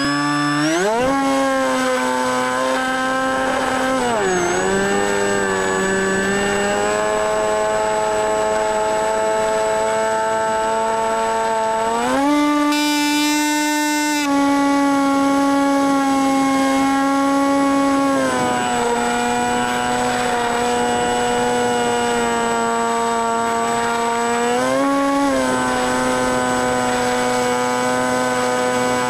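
RC plane's motor and propeller, heard from an onboard camera. It spins up sharply right at the start, then runs with a steady whine whose pitch sags about four seconds in, jumps up around twelve seconds, drops back near fourteen and rises again near twenty-five as the throttle changes.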